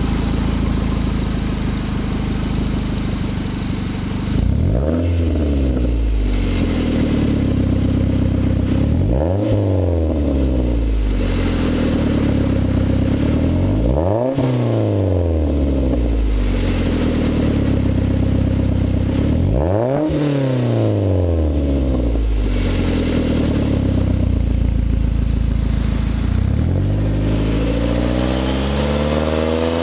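2004 Mazda3's four-cylinder engine heard through a Mazdaspeed3 cat-back exhaust with a race pipe in place of the catalytic converter. It idles, then is revved four times, a few seconds apart, each rev rising sharply and falling back to idle. Near the end the car pulls away, the engine climbing steadily in pitch.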